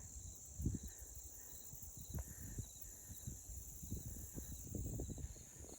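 A steady, high-pitched drone of insects with a softer chirp repeating about twice a second, over irregular low thuds of footsteps on a dirt road.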